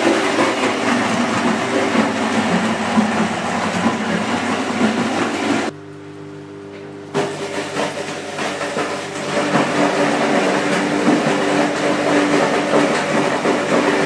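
A machine running with a steady hum under a loud, rushing noise; about six seconds in the noise cuts out for a second or so, leaving only the hum, then comes back.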